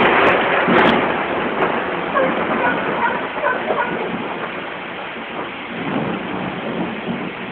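Thunder rumbling and fading away over several seconds, over steady rain.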